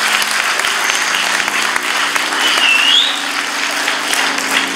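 Audience applauding, a dense patter of many hands, with a short rising whistle about two and a half seconds in.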